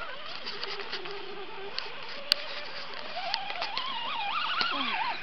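Axial AX10 Scorpion RC rock crawler's small electric motor and geartrain whining, the pitch rising and falling with the throttle as it crawls up a boulder, with scattered light ticks. A single sharp click a little over two seconds in is the loudest sound.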